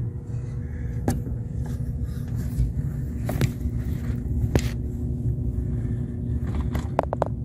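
Steady low rumble with a faint hum underneath, broken by a few sharp clicks and a quick run of clicks near the end as the parts are handled at the engine block.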